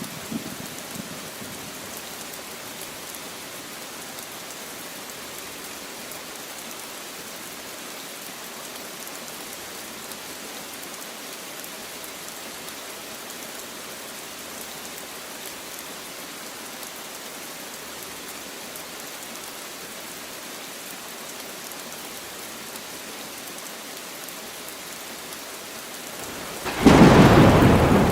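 Light rain falling steadily on leaves, then near the end a sudden loud clap of thunder that rumbles on.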